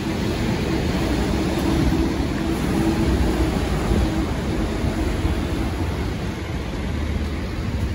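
City road traffic on a wet street: cars and vans driving past, with a steady road noise and engine rumble that swells twice as vehicles go by.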